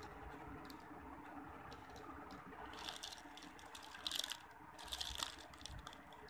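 Clear plastic zip-lock bags crinkling as they are handled, in three short bursts with a few small clicks, over a faint steady background noise.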